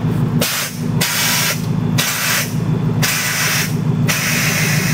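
Air suspension dumping air to lower the truck: the valves release air in four or five hissing bursts, about one a second, over the steady hum of the idling engine.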